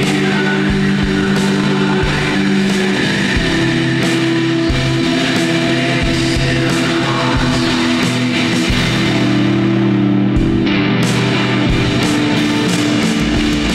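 Shoegaze noise-rock song: fuzz-distorted electric guitars hold sustained chords over bass, with steady drum hits.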